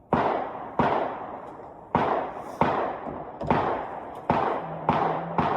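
Gunshots at a shooting range: about eight single shots at an uneven pace, each with a reverberant tail.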